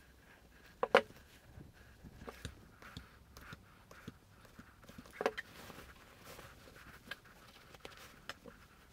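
Hands handling a quilt and its fabric binding strip: soft rustling and light scrapes, with two sharper knocks, one about a second in and one about five seconds in.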